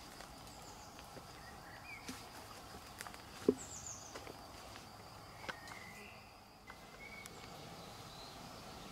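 Quiet waterside ambience with small birds chirping now and then in short, partly downward-sliding calls over a faint steady high tone. A few light clicks and one sharper knock about three and a half seconds in.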